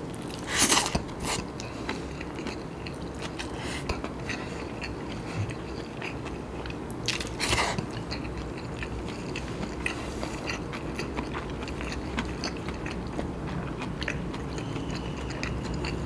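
A person chewing a handful of nasi kandar rice with moist mouth sounds, louder about a second in and again at about seven and a half seconds.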